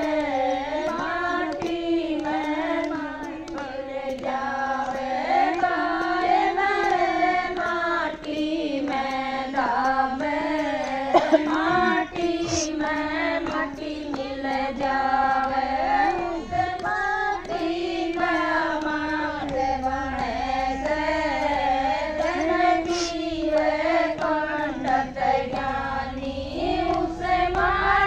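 A group of women singing a Hindi devotional bhajan together, a continuous flowing melody without pause. A short sharp knock stands out briefly about eleven seconds in.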